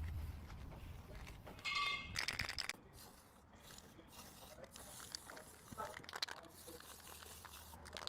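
Masking tape pulled off the roll and torn, faint rustling and ripping with a short squeak about two seconds in.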